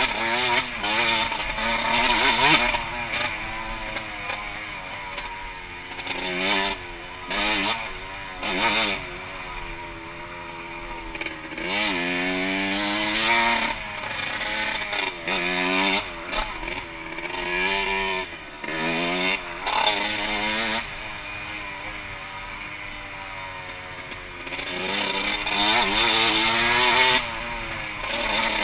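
2006 Suzuki RM125's two-stroke engine revving hard and backing off over and over, its pitch climbing and falling again and again as the throttle opens and closes on a fast trail ride.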